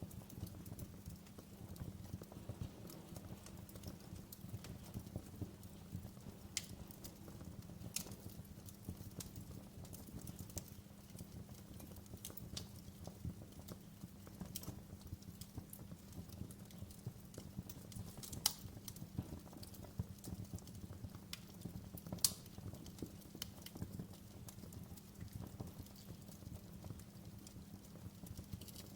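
Wood fire crackling in a fireplace: scattered sharp pops and snaps over a low steady rumble, with two louder pops past the middle.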